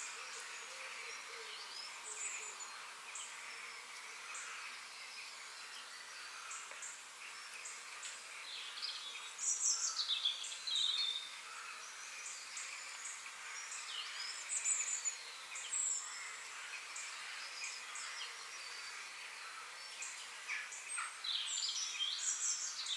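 Several birds chirping and calling on and off over a steady high hiss of outdoor background noise, busiest about ten seconds in and again around fifteen seconds.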